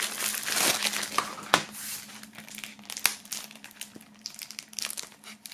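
Cellophane shrink-wrap crinkling and crackling as it is worked off a plastic CD jewel case, with sharp crackles. It is loudest in the first couple of seconds, then thins out.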